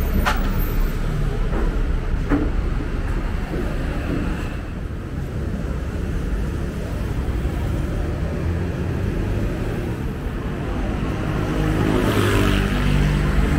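Roadside traffic: a city bus passing close by at the start over a steady low rumble of traffic, then a motorbike passing near the end, its engine pitch shifting.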